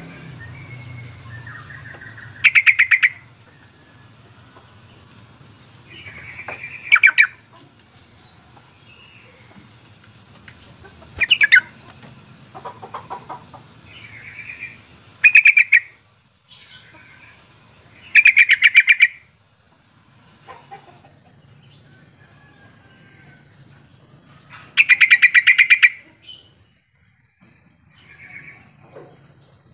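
Yellow-vented bulbul (trucuk) calling: six loud, bubbly chattering phrases of rapid notes, each about a second long, come every few seconds, with softer chirps between them.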